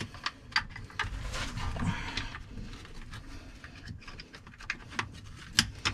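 Hands handling charger cables and a webbing strap around a plastic-cased battery: scattered light clicks with a stretch of rustling, and a sharper click near the end.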